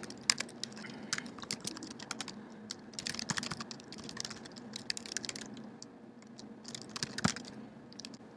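Typing on a computer keyboard: quick runs of key clicks with brief pauses, and one louder keystroke near the end.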